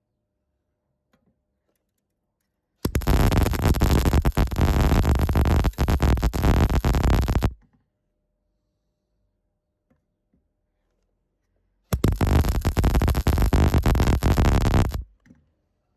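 MIG welder laying two bursts of weld, the arc crackling and buzzing for about four and a half seconds, then again for about three seconds after a pause.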